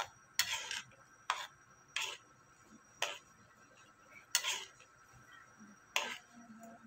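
Metal spoon scraping and clinking against a metal wok while stirring corn kernels in cream, about seven short strokes at an uneven pace.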